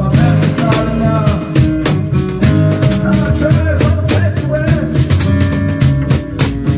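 Music with a steady drum beat, bass and guitar, and a melody line that could be singing.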